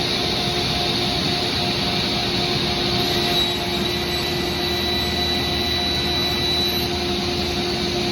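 Felder K700 sliding table saw running at full speed after start-up, a steady high whine over an even machine hum, with the shop's dust collection running.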